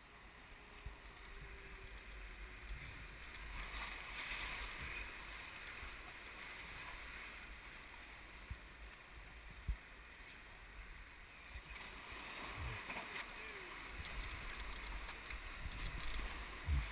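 Whitewater rapids rushing steadily around an inflatable raft, swelling louder in places. A few sharp knocks cut through, the loudest two near the middle and just before the end.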